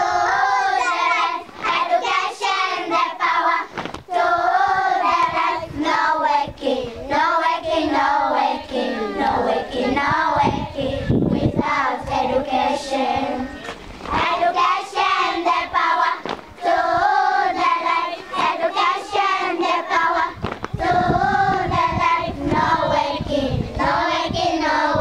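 A group of young schoolgirls singing a song together, phrase after phrase with short breaks between.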